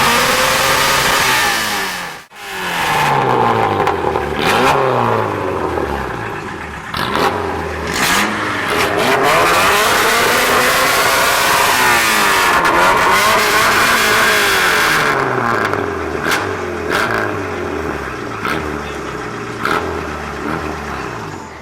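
Tuned car engines revving and accelerating hard, the pitch climbing and falling again and again through gear changes, with sharp exhaust pops and crackles in between. The sound drops out for a moment about two seconds in, then comes back.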